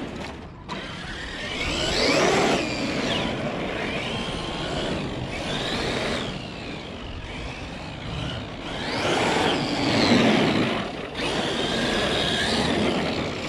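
Traxxas X-Maxx RC monster truck's brushless motor, on a Max6 ESC at 8S, whining up and down in pitch through several bursts of throttle as the truck is driven.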